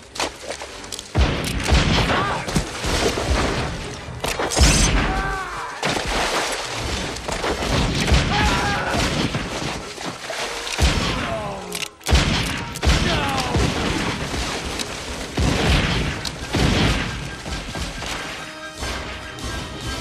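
Film gunfight soundtrack: a long barrage of gunshots and booming blasts, some rapid and overlapping, laid over dramatic music.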